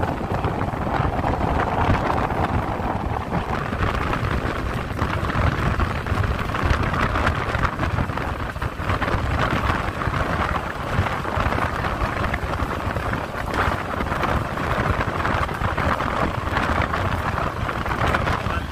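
Steady running noise of a moving passenger train, with wind rushing over the microphone.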